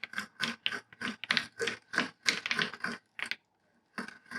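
A hand tool being worked quickly back and forth on wood, making rapid rasping strokes at about four or five a second, with a short pause near the end before the strokes start again.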